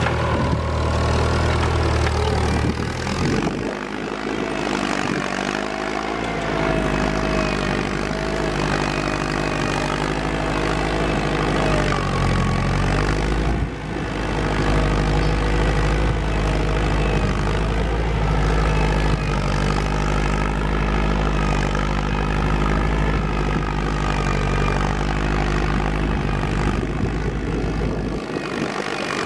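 Farm tractor engine running steadily under load while pulling a moldboard plow through sod. Its tone shifts abruptly a few seconds in and again about halfway through.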